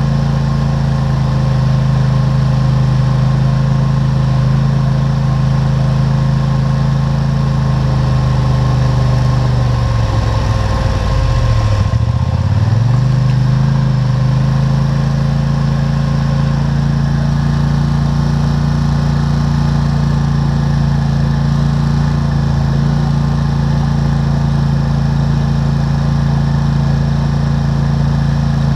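ATV engine running steadily while riding, heard close up from a mount on the machine. About ten seconds in, the engine's pitch drops for a couple of seconds and then climbs back to its earlier steady speed.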